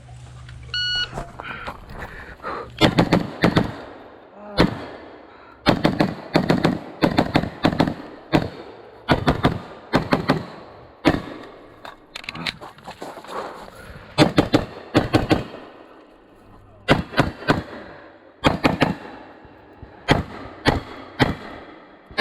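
An electronic shot timer beeps about a second in, then a pistol-caliber carbine fires many shots in quick strings, with short pauses between the strings.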